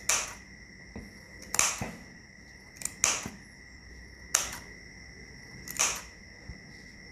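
Scissors snipping through a thick bundle of acrylic yarn, trimming a pom-pom: about five crisp cuts, roughly one every second and a half.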